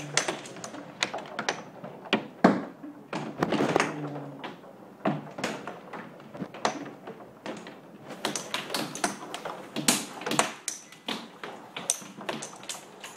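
Storm rain beating against window glass in irregular sharp taps, coming thicker in the last few seconds.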